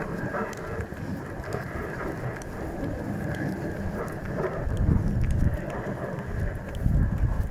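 Reindeer-drawn wooden sleigh gliding over snow: a steady crackly hiss of the runners on the snow, with the reindeer's hooves crunching and snapping as it walks, and low rumbles a couple of times near the end.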